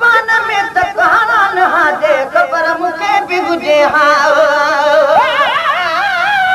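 Sindhi devotional naat sung by a solo voice: quick ornamented phrases, then from about four seconds in long held notes with a wide vibrato.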